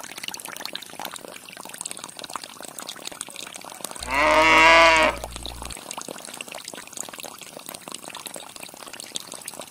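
Water trickling steadily as it pours from the small pipes of a miniature water pump. About four seconds in, a loud bleat-like animal call, rising then falling in pitch and lasting under two seconds.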